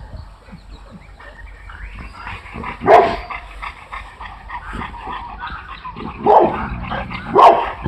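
Boerboels (large South African mastiffs) giving short barks during rough play: one about three seconds in and two more near the end.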